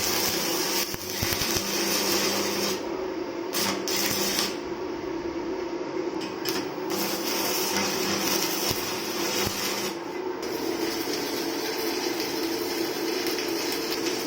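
Stick welding with a 7018 electrode on a Ronix 200-amp DC inverter welder: a steady crackle and sizzle from the arc, under a constant hum.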